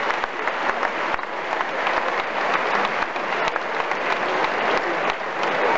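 Large stadium crowd applauding steadily, many hands clapping at once.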